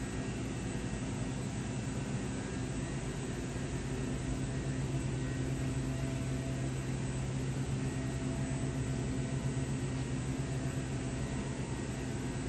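Steady machine hum with an even rushing noise underneath, from industrial equipment running.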